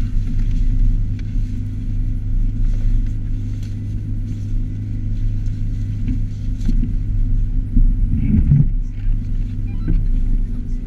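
Inside a car driving on a snow-packed road: a steady low rumble of engine and tyres, with scattered small clicks and a short louder bump about eight seconds in.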